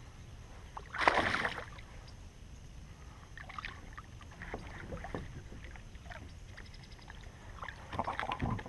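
A hooked largemouth bass thrashing and splashing at the water's surface beside a kayak as it is reeled in and landed. A loud splash comes about a second in, then scattered smaller splashes and clicks, with a quick cluster of them near the end as the fish is grabbed.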